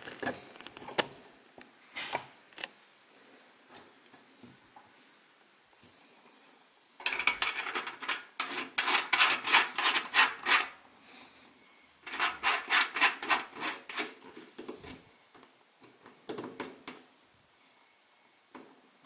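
The metal filler cap being screwed onto a Feuerhand Baby Special 276 hurricane lantern's kerosene tank: two spells of rapid scraping and rasping, a few seconds each, with a few small knocks before them.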